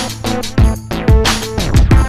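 Electronic music with a heavy beat: deep bass drum hits about twice a second, some sliding down in pitch, under synth lines.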